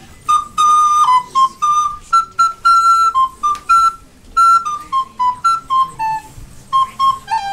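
Solo recorder playing a lively high tune, one note at a time, about three or four short, separately tongued notes a second.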